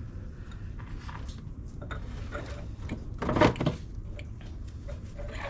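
Light metallic clinks and scrapes of hands and parts working a car's intermediate drive shaft into the transmission housing. A louder burst of clatter lasting about half a second comes past the middle.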